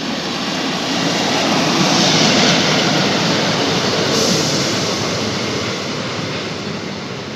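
Class 153 single-car diesel multiple unit passing through a station at speed. The rush of its wheels on the rails and its running noise swell to a peak about two seconds in, then fade as it draws away.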